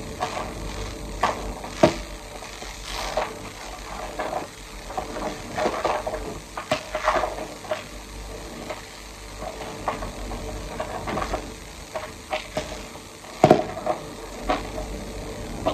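Food being stirred in a sizzling frying pan, a spoon or spatula scraping and clinking against the pan at irregular intervals, with one sharper knock on the pan near the end.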